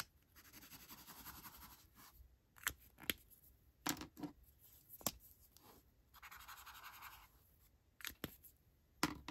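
Pen tips scratching across thin notepad paper as zigzag test scribbles are drawn, first with a fine pen, then with a thicker black marker. Several sharp clicks and taps come between the strokes as pens are handled.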